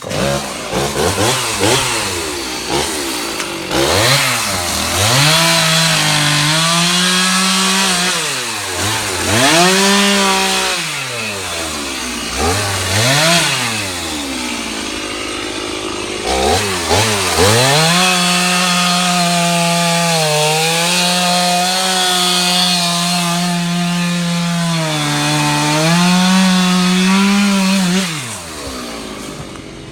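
Gasoline chainsaw cutting a fallen tree limb. It revs up and down several times in the first half, then holds near full throttle with small dips under load, and winds down near the end.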